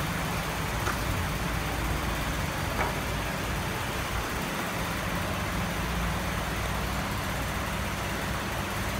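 Steady rumble and hiss of workshop background noise with a low hum, and a couple of faint knocks from the wooden toolbox being handled.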